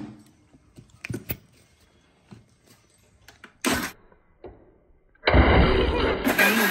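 Stainless-steel mixer-grinder jar and lid being handled, with a few light knocks and clicks, then about five seconds in the mixer grinder switches on and runs loudly, grinding cooked spinach.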